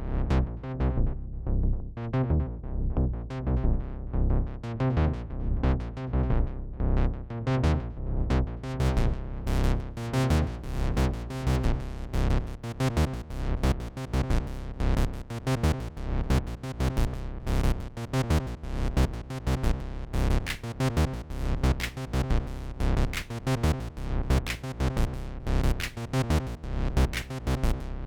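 Acid-style techno played on a Roland TR-8 drum machine and a Roland JU-06A synthesizer, with a steady kick pulse of about two beats a second. The treble opens up over roughly the first nine seconds as brighter synth and hi-hat sounds fill in.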